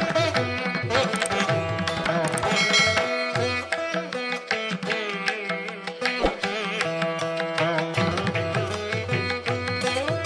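Instrumental background music in an Indian classical style: plucked sitar with sliding notes and tabla, over a steady drone.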